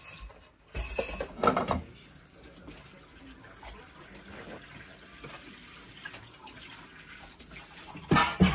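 Water running steadily from a kitchen tap into a sink, with a couple of loud clatters about a second in and another near the end.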